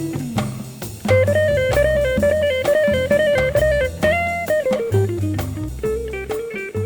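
Background music: a blues-style guitar melody over bass and drums.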